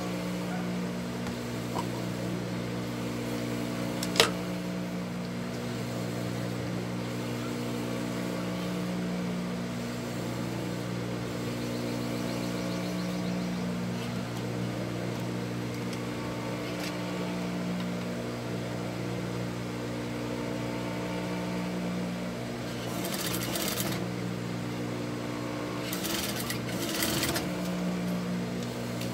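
Industrial sewing machine running: a steady motor hum that swells and eases as it stitches through fabric in short runs. A single sharp click comes about four seconds in, and there is a little rustling and handling noise near the end.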